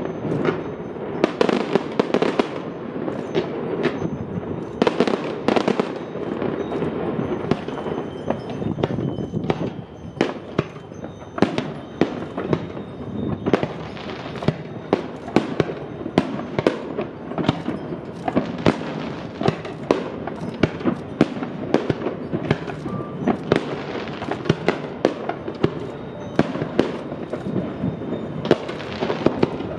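Aerial fireworks display: shells bursting one after another, many sharp bangs, at times several a second, over a continuous crackle.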